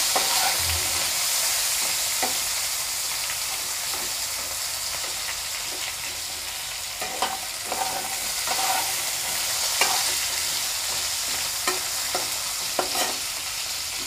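Cubes of giant taro (mankochu) sizzling steadily as they fry in oil in a non-stick kadai. A metal spatula scrapes and turns them several times, mostly in the second half.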